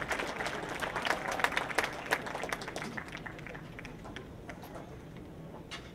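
Audience applauding, with scattered voices from the crowd; the clapping is densest in the first few seconds and thins out after that.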